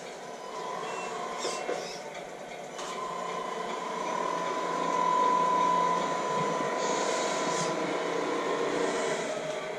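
Electric motor and gearbox of a Tamiya Mercedes-Benz Arocs radio-controlled tipper truck whining as the truck drives across a tiled floor. The whine is steady, grows louder from about three seconds in and is loudest about halfway through.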